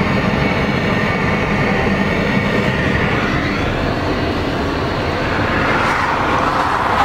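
Steady rush of road and wind noise with a low rumble inside a moving car.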